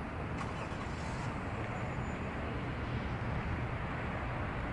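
Steady road traffic noise with a low hum underneath.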